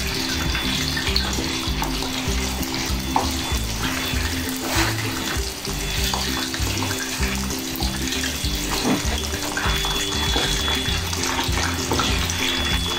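Pork belly deep-frying in hot oil in a pan, a steady sizzle full of small crackles and spits, as the skin is fried a second time to crisp it. Background music with a steady beat plays under it.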